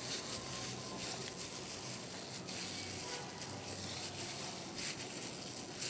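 Soft, faint squishing and plastic crinkling as a hand in a disposable plastic glove mashes boiled potatoes and minced meat together in a plate, over a steady hiss.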